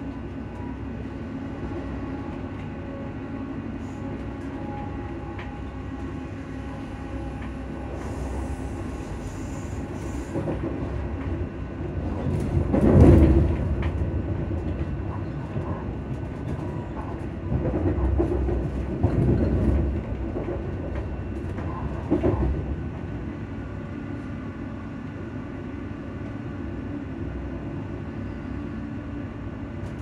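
Inside a moving Alstom electric train: the steady hum of its traction fans over the rumble of the wheels on the rails. The rumble swells louder about twelve seconds in, then twice more a few seconds later.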